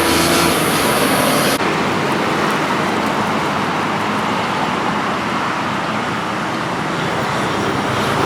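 Steady city street traffic noise from passing motor vehicles, with an abrupt change about a second and a half in where the sound cuts to a new shot.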